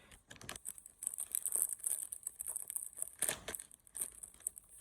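Handmade squishy being squeezed and handled, giving irregular crinkly, crackling rustles.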